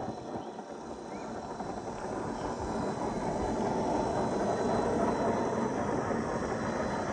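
1/10-scale RC crawler (MST CFX chassis with a 540 brushed motor) driving over wet gravel and mud, its tyres crunching and its drivetrain running, growing louder over the first few seconds as it comes closer.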